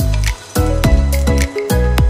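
Background music with a steady beat: deep bass drum hits that drop quickly in pitch, with sharp percussion hits and short held notes between them.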